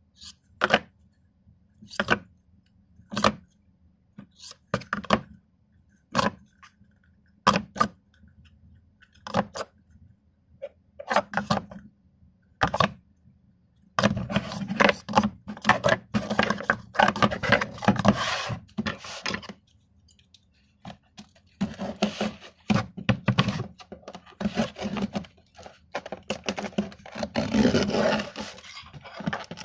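Plastic Speed Stacks sport-stacking cups are pulled off a nested stack and set down on a tabletop one at a time, a sharp knock every second or so. After that comes a stretch of quicker, denser clattering of cups being handled. Near the end, scissors cut through packing tape on a cardboard box.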